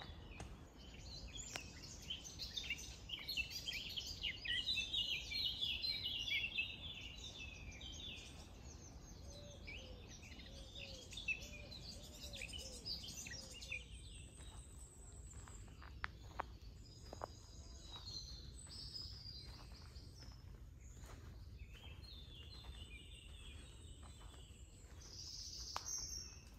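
Songbirds singing and chattering in a dense, overlapping chorus, loudest in the first half. About halfway through, footsteps on a dirt path take over at a walking pace, with scattered bird calls over a steady low rumble.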